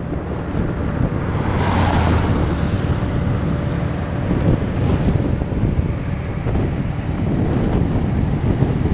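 Strong wind buffeting the microphone, a dense low rumble that gusts up and down, with a stronger hissing gust about one to two seconds in.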